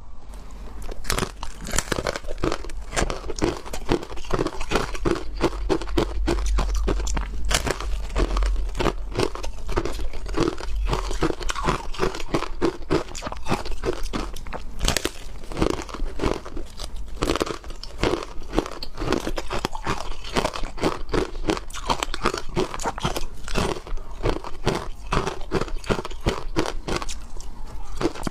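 Ice being bitten and chewed, a dense run of crisp crunches several times a second with no pause.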